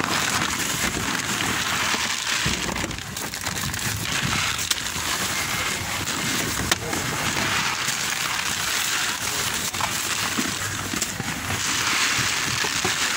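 Crackling rustle of woven-plastic and fabric shopping bags being handled close by, with faint voices behind it.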